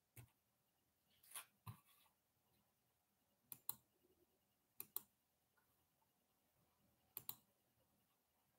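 Near silence broken by several faint, sharp clicks, some coming in quick pairs.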